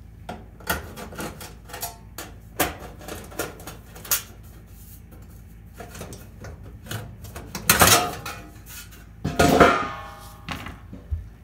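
Sheet metal and small steel parts clicking and rattling as the rear terminal-block access cover is worked off the back of an electric range with a hand tool. Two louder clanks that ring briefly come about two-thirds of the way through.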